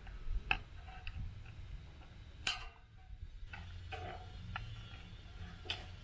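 Aviation snips cutting notches in white metal trim: a string of sharp clicks and snips, the loudest about two and a half seconds in, over a low steady rumble.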